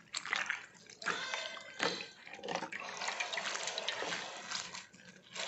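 Hands squeezing and kneading a handful of dadap (coral tree) leaves in water, with irregular wet splashing and sloshing strokes, as the leaves are crushed to release their juice into the water.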